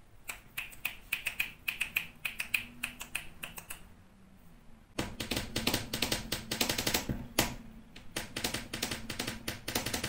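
A fast run of sharp clicks, about three to four a second, each with a brief high ring. They pause briefly about four seconds in, then resume denser and fuller.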